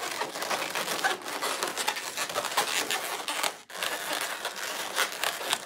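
Latex twisting balloons being twisted and rubbed together in the hands: a continuous crackly, squeaky rubbing, with a brief break a little past halfway.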